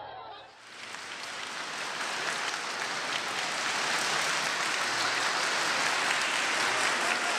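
Crowd applauding, a dense steady clatter of many hands, swelling in about a second in and holding steady.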